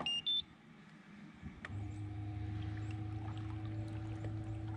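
Two short electronic beeps, the second higher, then about a second and a half later an electric trolling motor starts and runs with a steady low hum, moving the fishing kayak closer to the spot.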